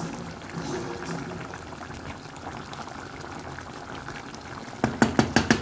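A pot of chicken, green bean and potato stew bubbling steadily on the hob. Near the end comes a quick run of about five sharp knocks, the loudest sound.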